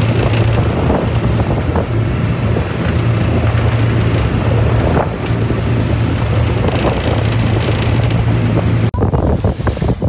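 Motorboat running at speed: a steady low engine drone under the rush of its churning wake, with wind buffeting the microphone. Near the end the engine drone drops away, leaving wind and water noise.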